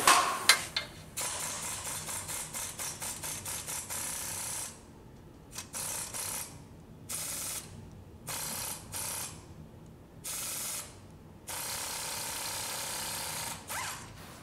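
Pneumatic air ratchet running in stop-start bursts: a hiss of air with rapid ratcheting clicks as it turns the nuts at the exhaust Y-pipe flange. A run of a few seconds at the start is followed by several short triggers and one longer run near the end.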